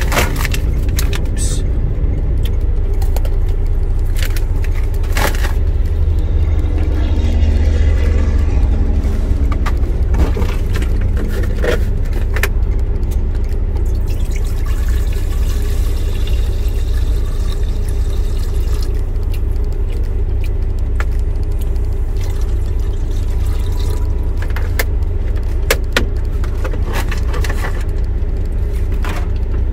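Semi-truck's diesel engine idling, a steady low rumble heard from inside the cab, with scattered light clicks and clinks.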